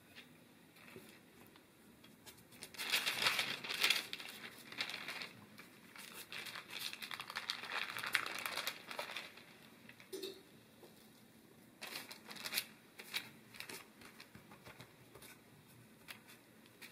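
Wooden rolling pin rolling out dough on a paper-covered counter, with the paper crinkling and rustling. There are two longer stretches of rustling in the first half, then shorter scuffs and taps as the dough is handled.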